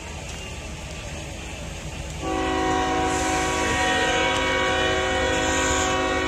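Norfolk Southern freight train's locomotive air horn sounding one long steady chord of several notes, starting about two seconds in over a low rumble.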